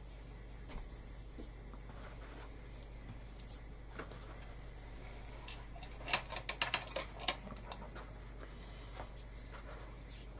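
Light handling noises from hands working trim onto a felt top hat: scattered soft clicks and rustles, with a denser run of small clicks about six to seven and a half seconds in, over a low steady hum.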